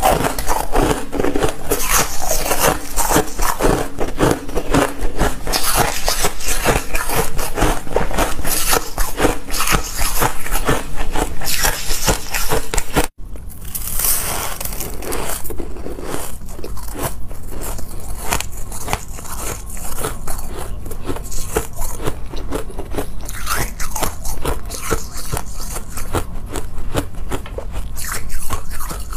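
Close-miked biting and chewing of frosty ice chunks: a dense run of crisp crunches and crackles. The sound breaks off for an instant about thirteen seconds in, then the crunching goes on slightly softer.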